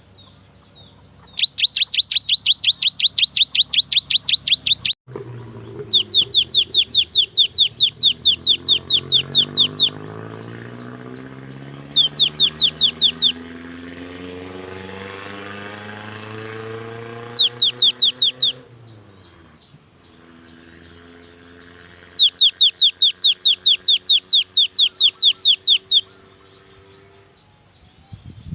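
Cinereous tit (gelatik batu) singing a rapid chattering series of repeated high notes, about six a second, in five bursts of one to four seconds each with short pauses between.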